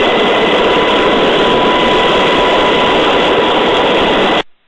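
MH-60 Jayhawk helicopter's turbine engines and rotor, a loud, steady rushing noise with a thin steady whine, heard through the aircraft's crew audio. It cuts off suddenly near the end.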